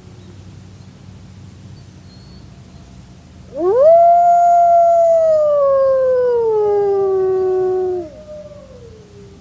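Wolf howling. A faint falling howl fades at the start. About three and a half seconds in, one long, loud howl sweeps up sharply, holds, then slowly falls in pitch and stops about four and a half seconds later, with a second, fainter falling howl overlapping its end and trailing on. A steady low hum runs underneath.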